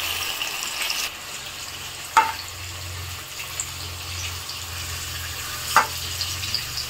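Paneer cubes sizzling steadily in shallow hot oil in a kadai while being lifted out with a silicone spatula. Two sharp clicks come a few seconds apart.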